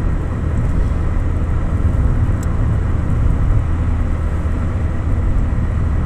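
A moving car's engine and tyre noise heard steadily from inside the cabin: an even low rumble with no change in pace.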